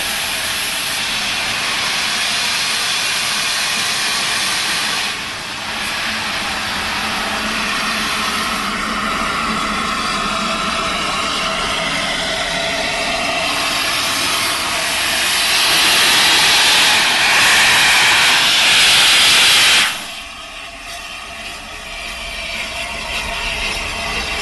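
Steam locomotive A1 Pacific 60163 Tornado, standing with steam up, letting off a loud, steady hiss of escaping steam that grows louder over the last few seconds. It cuts off suddenly near the end, leaving a quieter, mixed background.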